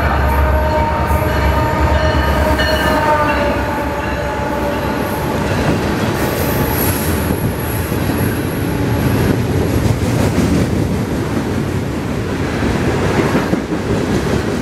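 CSX freight train passing, led by an EMD GP40-3 diesel locomotive: the engine's low running sound and a set of tones that drop slightly in pitch as the locomotive goes by in the first few seconds. Then the freight cars roll past with steady wheel-on-rail noise and a thin high wheel squeal around the middle.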